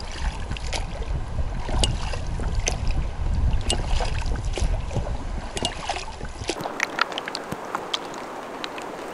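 Inflatable rowing boat on the water: oar knocks and small splashes over wind rumbling on the microphone. About two-thirds of the way through, this gives way to the steady sound of river water running, with faint trickles.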